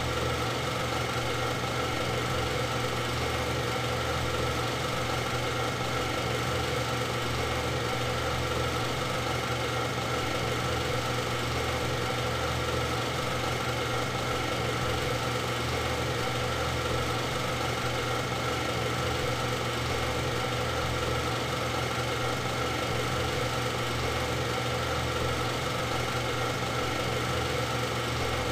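Steady mechanical hum of a machine running at an unchanging speed, holding the same pitch and level throughout, with no revving.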